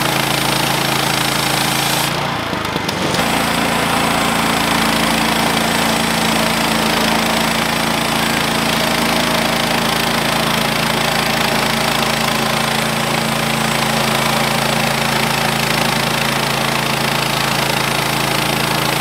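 Woodland Mills HM130 bandsaw mill's gas engine running steadily under load as the band blade cuts lengthwise through a driftwood log. The sound briefly dips and shifts slightly in pitch about two to three seconds in.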